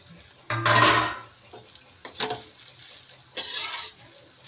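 A spatula scraping and stirring grated fresh coconut around a kadhai in a little ghee: three scraping strokes, the first about half a second in and the loudest, with no real sizzle.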